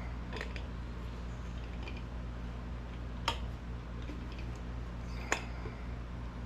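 A few sharp metallic clicks as a loosened fitting is wiggled and unscrewed from an old sandblaster tank, the two loudest about three and five seconds in, over a steady low hum.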